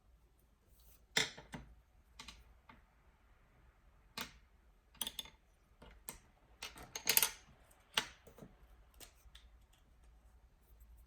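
Irregular clicks and short taps of work at a desk, about a dozen spread over several seconds. The loudest are about a second in and a short cluster around the seven-second mark.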